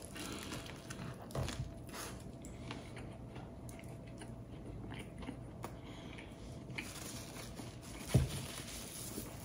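A person biting into and chewing a baguette sandwich of luncheon meat and egg, with small crunches of the bread crust in the first couple of seconds. A dull thump sounds about eight seconds in.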